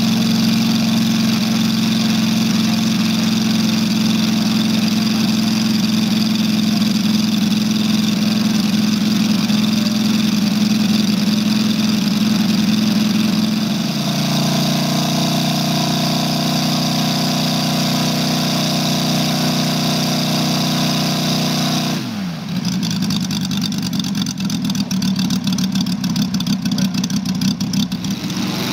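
Moki 250cc five-cylinder radial engine of a quarter-scale Hawker Sea Fury model running steadily on the ground. About three-quarters of the way through its pitch falls as it is throttled back to a slow, uneven idle with separate firing pulses.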